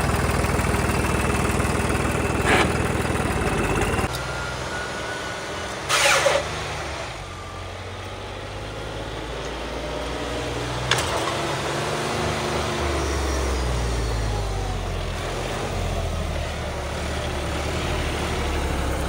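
A vehicle engine running loudly, then dropping off sharply about four seconds in. A short loud burst comes about six seconds in, and later the engine's pitch rises and falls again as it is revved and pulls.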